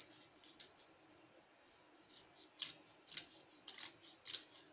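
Scissors snipping through several layers of folded paper in short cuts: a few snips at the start, a pause of over a second, then a quicker run of snips.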